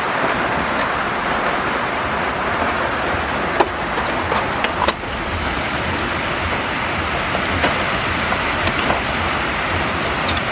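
Steady background hiss with a few short sharp clicks and knocks from hands handling the plastic parts of an inkjet printer's rear paper path while freeing a paper jam.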